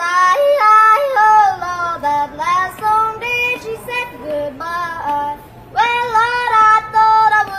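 A young boy singing a country tune in yodel style, his voice flipping up and down between notes, with a long held note near the end.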